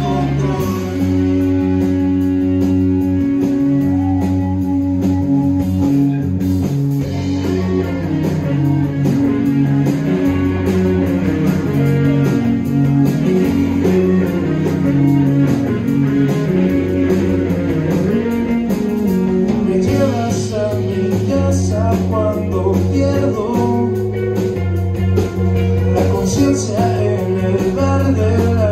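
A live band playing: electric guitars, bass and drums, with cymbal hits and steady bass notes under the guitar lines.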